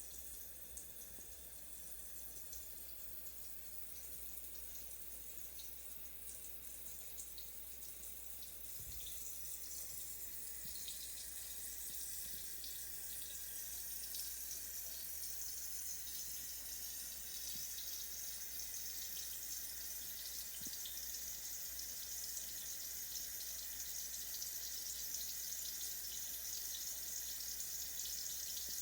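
Shower running: a steady hiss of water spray, growing a little louder about ten seconds in.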